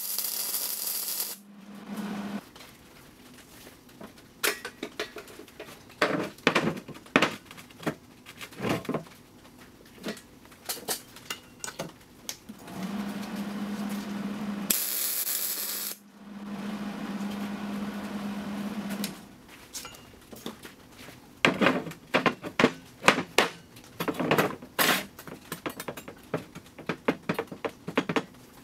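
A Hobart MIG welder's arc crackling and hissing while welding the sleeved joint of a chromed tube drop axle, loudest in the first second or so and again briefly around the middle, with a steady hum in the stretches between. Between the welds come many sharp metal clicks and knocks as the gloved hands handle and turn the axle on the bench.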